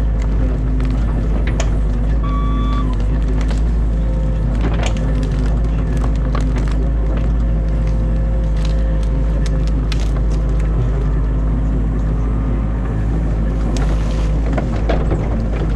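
Excavator's diesel engine running steadily, heard from inside the cab, with scattered cracks and snaps of branches breaking as the dam is torn out. A brief high squeak sounds about two and a half seconds in.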